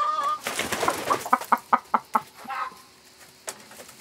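Domestic hen in a nest box giving a short call, then a quick run of sharp, loud clucks for about two seconds before going quiet.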